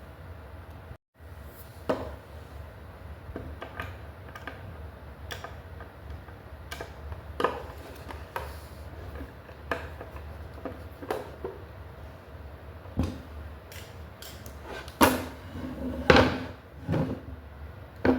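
Scattered clicks and knocks of flat-pack cabinet boards and hardware being handled and set down, with a few louder wooden knocks near the end.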